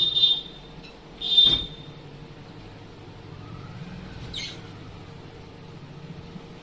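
Two short, high-pitched squeaks about a second apart as a wooden cabinet's glass-fronted doors are worked on their hinges, then a fainter brief scrape about four seconds in.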